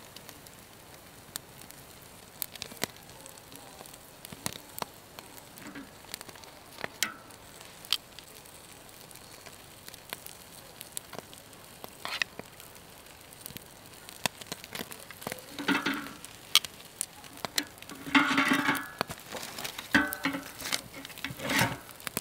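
Dolly Varden sizzling on a wire grill rack over a wood campfire, with the fire crackling and popping sharply throughout. A few louder, brief sounds come in the last few seconds.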